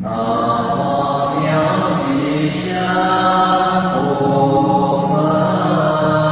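Buddhist devotional chanting of an invocation to Manjushri, voices singing in sustained melodic lines. A new phrase starts abruptly at the very beginning.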